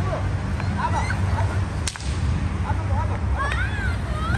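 A small firecracker going off with one sharp crack about two seconds in, over a steady low rumble.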